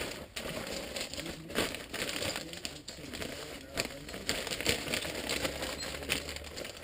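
Hard plastic being handled: irregular light clicks, taps and rustles as a motorcycle windshield is picked up and moved about.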